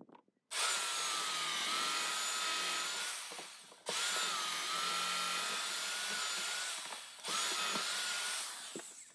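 Power drill with an Armeg extension bit boring through a timber rail, run in three bursts of a few seconds each with short stops between. The motor's whine dips in pitch now and then as it loads up in the wood.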